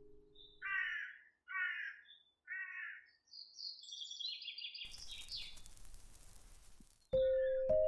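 A crow cawing three times, about a second apart, followed by a quick run of higher chirping bird calls. Near the end a loud ringing chime note starts suddenly.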